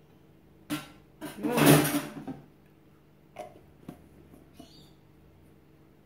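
Kitchen handling sounds: a click, then a loud scraping clatter of toast and a knife put down on a plate. After that come a few light clicks as a plastic peanut butter jar lid is twisted.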